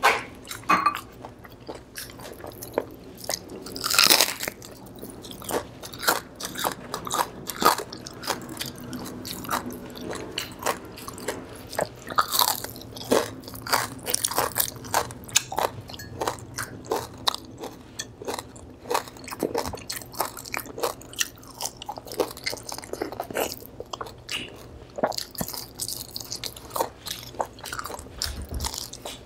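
A person biting and chewing crispy deep-fried pork: a steady run of sharp, crisp crunches and crackles, with the loudest crunch about four seconds in.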